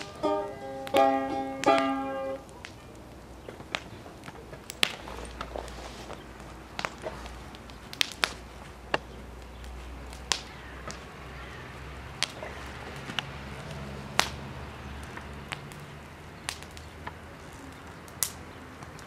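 Balalaika plucked in a quick tune, with the last notes ringing out and stopping about two and a half seconds in. After that come scattered, irregular sharp cracks from a wood fire.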